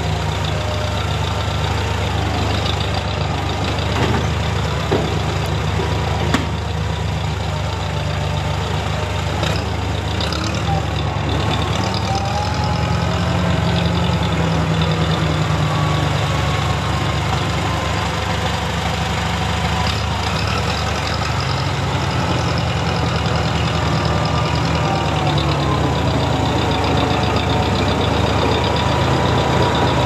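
Case 430 farm tractor engine running steadily as the tractor manoeuvres with its front loader, with a couple of short clanks about five and six seconds in.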